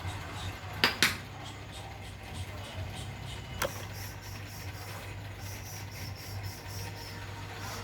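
A small motor running with a steady low hum, broken by sharp clicks: two close together about a second in and one more a little past the middle.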